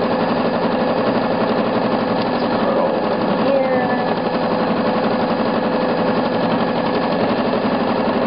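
Elna 6600 sewing machine stitching steadily at a constant speed during free-motion quilting, the needle running with a rapid, even rhythm over a steady motor hum.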